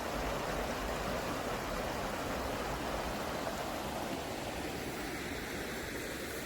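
Steady rushing of flowing water, an even unbroken noise with no distinct events.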